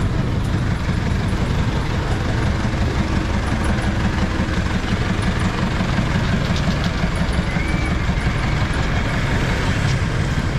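Street traffic noise dominated by a vehicle engine running steadily close by, a dense low engine sound with an even wash of road noise over it.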